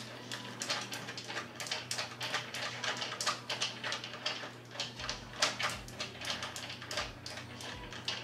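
Irregular light clicks and rattles of a hand screwdriver and screws being worked into the back of a flat-screen TV, several a second.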